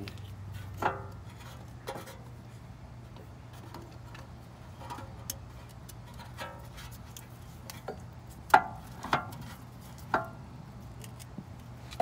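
Scattered metallic clinks and light knocks as the electric parking brake motor is handled and fitted back onto a BMW rear brake caliper. The three loudest, ringing clinks come close together near the end, over a low steady hum.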